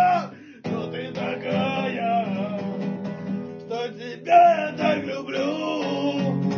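Acoustic guitar strummed in steady chords, with a man's voice singing a wavering melody over it. There is a short break near the start before the song goes on.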